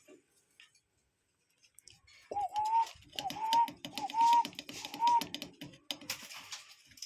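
A cuckoo calling four times, about a second apart. Each call is a short note sliding up into a longer, clear whistled note. Scattered faint clicks run beneath.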